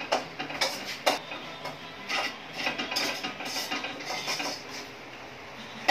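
Scattered light clicks and knocks, with rustling stretches in between.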